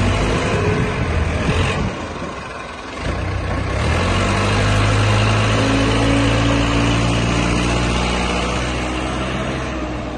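JCB 3CX backhoe loader's diesel engine running. It eases off about two seconds in, then settles about a second later into a steady, even running note.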